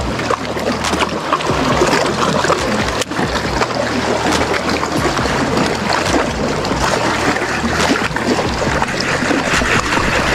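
Motorboat under way on open water: a steady engine hum under rushing wind and water noise, with splashes.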